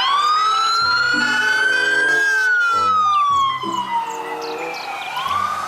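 Wailing siren: one slow rise in pitch over about two seconds, a longer fall, then a new rise starting near the end. Faint background music plays underneath.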